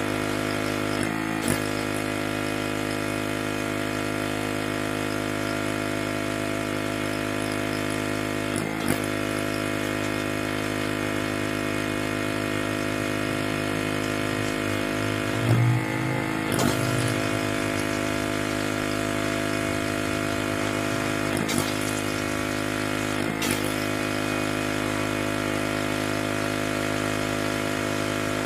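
Pressure washer running steadily, with a few brief knocks through it; the loudest comes about halfway.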